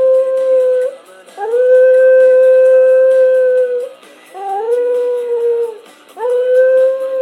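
Cocker spaniel howling along to music: a howl ends about a second in, then three long howls follow with short breaths between, each sliding up at the start and then holding a steady pitch.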